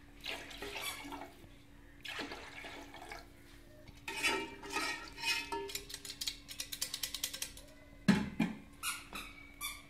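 Water poured into a large aluminium pot of chicken broth, splashing into the liquid, with a louder knock against the pot just after eight seconds in.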